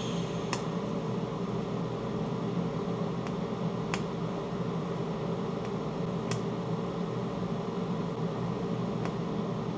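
TIG welding of thin sheet metal: a steady electrical hum with an even hiss from the welding set and arc, broken three times by a short sharp tick as the arc is struck for a weld spot.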